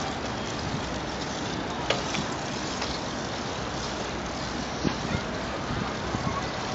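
Steady rush of wind on the microphone and bicycle tyre noise on asphalt while riding, with two brief knocks, about two seconds in and near five seconds.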